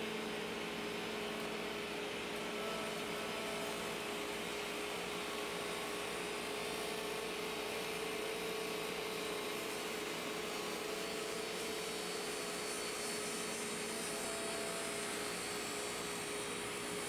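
A Bosch 4100XC-10 table saw's 15-amp motor and a dust collector running together with a steady, even whine, while the spinning blade is slowly raised up through a plastic zero-clearance insert, cutting its own slot.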